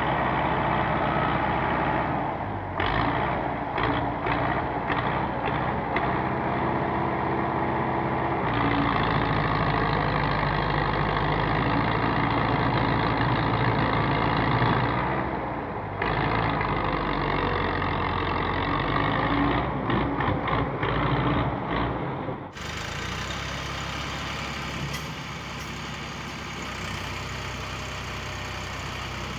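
A farm tractor's engine running steadily. About three-quarters of the way through, the sound cuts abruptly to another tractor engine running, quieter and more even.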